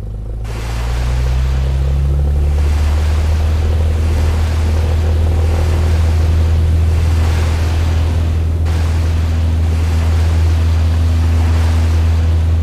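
Floatplane taking off from water: a steady low engine drone under the loud rushing hiss of spray from the floats, close to the microphone, with wind on the microphone. The spray noise swells about half a second in.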